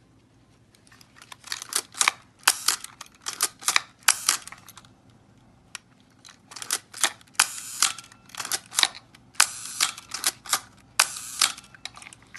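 Nikon F 35mm film SLR being worked by hand: two runs of sharp mechanical clicks and ratcheting from its shutter and film-advance mechanism, with a short pause between them.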